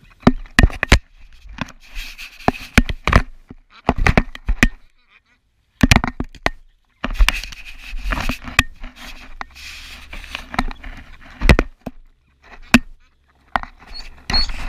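Ducks and ducklings pecking at and bumping a GoPro camera in the grass: a run of sharp, irregular taps and knocks on the camera housing, close to the microphone.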